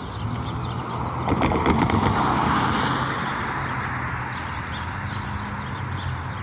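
A vehicle passing: its rushing noise swells about a second in, peaks a second or two later and eases off, over a steady low engine hum.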